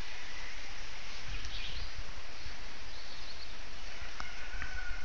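Rural outdoor ambience: steady background noise with a low rumble, and a few short, faint bird chirps. A thin, steady whistle-like tone comes in about four seconds in.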